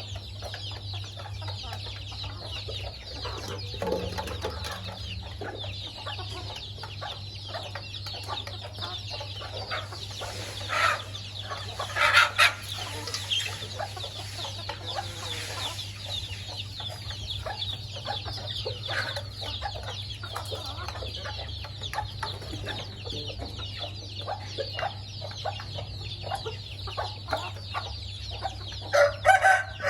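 Chickens clucking as they feed, over a continual stream of short, high calls. Louder clucks come about 11 and 12 seconds in and again near the end.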